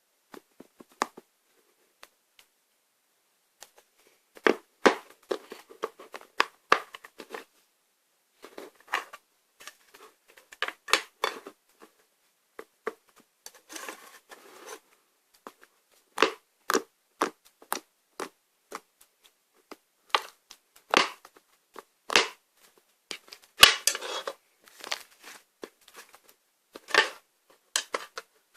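Toy slime being squeezed and worked by hand, giving irregular bursts of sharp clicking and popping with short pauses between.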